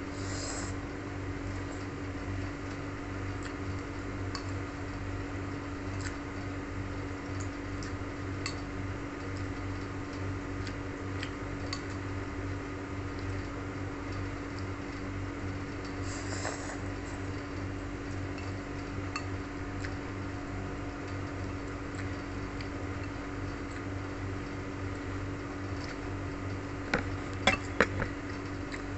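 Someone eating noodles from a ceramic bowl, with two short slurps and a few sharp clinks of a metal spoon against the bowl near the end, over a steady low hum.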